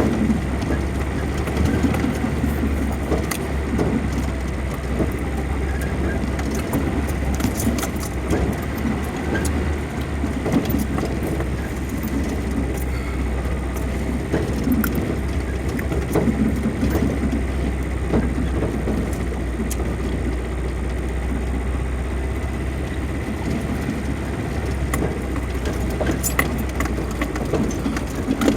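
Vehicle driving over a rough off-road dirt track: a steady low engine and tyre rumble with frequent rattles and knocks from the bouncing vehicle.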